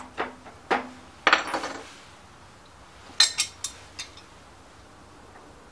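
Hand tools clinking and tapping on the steel drive shaft and gear of a lawn mower's self-propel transmission while a retaining clip is fitted: sharp metallic clinks, a burst about a second in and another about three seconds in.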